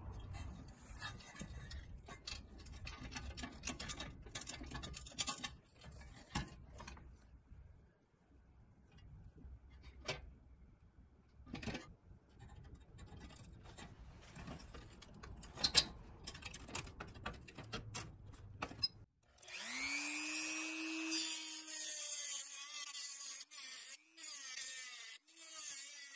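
Scraping, rubbing and small clicks as a rusty pressed-steel toy truck is handled and its stuck wheels are worked against the work surface. About 19 seconds in, a handheld rotary tool spins up with a rising whine and then grinds at the end of a wheel axle with a harsh, high hiss, briefly broken near the end.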